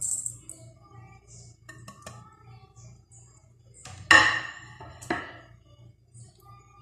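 Powdered spices sliding off a plate into a steel mixing bowl with a short hiss, then two clattering knocks about a second apart as the plate meets the bowl, the steel ringing briefly after each.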